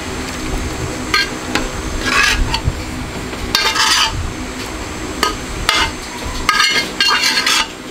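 Cooked pork adobo being scraped out of a metal cooking pot into a ceramic casserole dish: a string of short metal scrapes and clinks against the pot, about one a second, with a longer run of scraping near the end, over a steady low hum.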